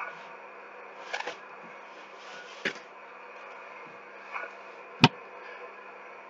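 Handling noises from someone moving close by: a few light rustles and clicks, then one sharp knock about five seconds in, over a steady faint hum.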